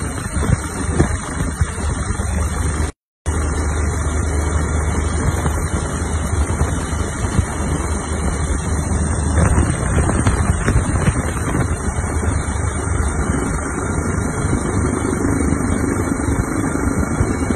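Steady low engine drone with rushing wind, as heard from inside an aircraft flying low over the area; the sound drops out for an instant about three seconds in.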